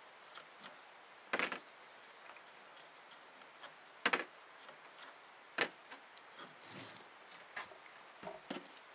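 Scattered sharp clicks and clacks of a hand tool and metal parts as the cap bolts of a Duo-Fast CN350 framing nailer are undone, three clearest about a second and a half, four and five and a half seconds in. A steady high whine runs underneath.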